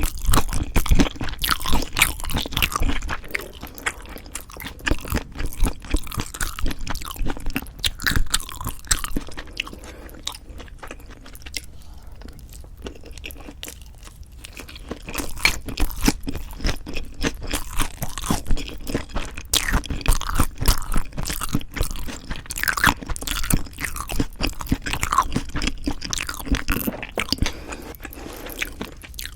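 Close-miked mouth sounds of eating: crisp crunching and wet chewing of leafy ssam wraps filled with food, in quick irregular crackles, with a quieter stretch about halfway through.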